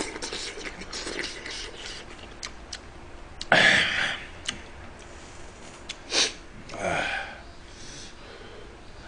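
Mukbang eating sounds: a man chewing a mouthful of stew, with three sharp noisy breaths or sniffs through the nose (the loudest about three and a half seconds in, the others around six and seven seconds) and a few light clicks of a metal spoon.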